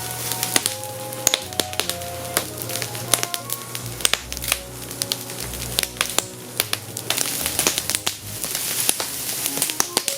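Bamboo branches burning in an open fire, crackling with many sharp snaps and pops, over soft background music with a simple melody.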